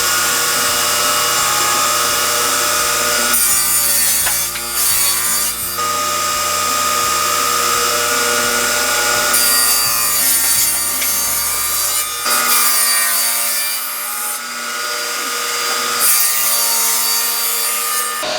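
Table saw running with its blade cutting wood, the cutting noise growing brighter and easing again several times as the cut goes on.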